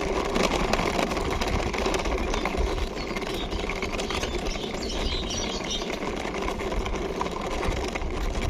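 Small toy car's wheels rolling and rattling as it is pushed along by hand: a steady whirring rattle full of small clicks.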